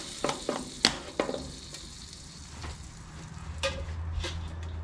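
Butter sizzling on a hot non-stick electric grill plate, with a few sharp spitting pops in the first second and a half. The sizzle thins out after about three seconds.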